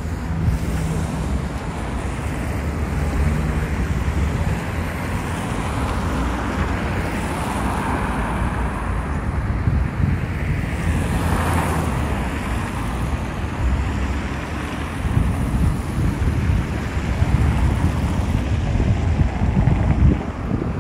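Steady road traffic on a wide multi-lane city street, with wind buffeting the microphone. A louder vehicle passes about halfway through.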